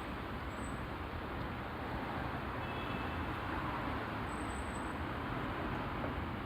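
Traffic at a road intersection: a steady hum of car engines and tyre noise on the road, swelling a little midway as a vehicle passes.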